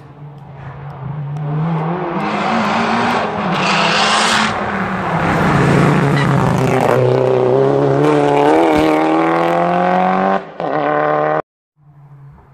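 Rally car at full race pace coming through a hillclimb bend: the engine grows loud, drops in pitch once, then climbs hard through the revs with a gear change, and the sound cuts off abruptly near the end.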